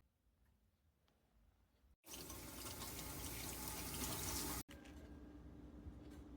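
Water running from a tap into a pot or container, a steady rush for about two and a half seconds that starts suddenly after a near-silent moment and cuts off abruptly.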